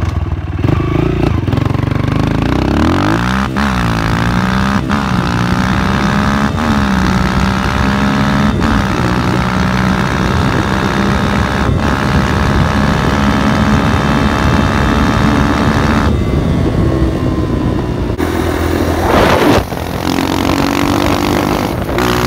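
Modified Honda CRF230F single-cylinder four-stroke dirt bike engine, with a high-compression forged piston and an aftermarket full exhaust system, accelerating hard on a 0-60 run. The pitch climbs and dips as it shifts up through the gears, then holds steady at speed.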